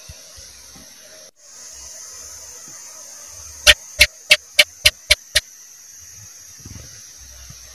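House gecko (cicak) calling: a run of seven sharp chirps over about a second and a half, a little past the middle, coming slightly faster toward the end. A steady high hiss runs behind it.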